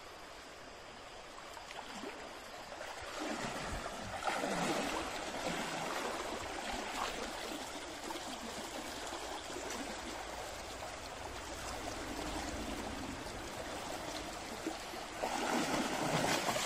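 Shallow stream running and water sloshing around a man's legs as he wades through it, with louder splashing near the end as he falls into the water.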